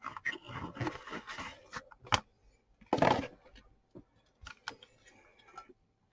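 A trading card pack and its packaging being opened by hand: wrapper rustling and crinkling, a louder rustle about three seconds in, and a few sharp clicks.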